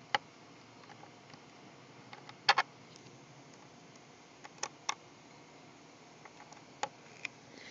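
Scattered sharp clicks and taps of a flat-blade screwdriver working a stuck screw loose inside an HP DV7 laptop, about half a dozen in all, the loudest a quick double click about two and a half seconds in.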